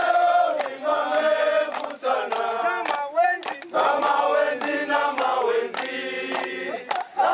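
A choir of voices singing a chant-like song in chorus, with sharp percussive beats running through it.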